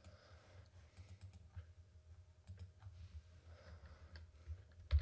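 Faint, scattered computer-keyboard clicks over a low steady hum.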